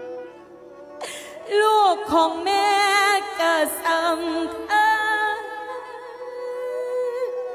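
A woman singing a slow, mournful Isan mor lam melody, with strong vibrato and long held notes, entering about a second in over a steady held accompanying note.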